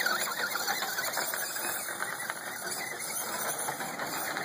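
Electric RC truck's motor whining as it drives fast across grass, the pitch swinging up and down with the throttle in the first second, then a steady rough whir of motor and drivetrain.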